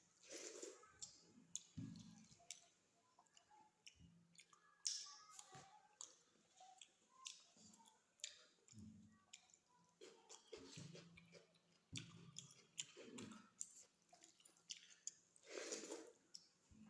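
A person chewing food, faint, with many irregular wet mouth clicks and smacks.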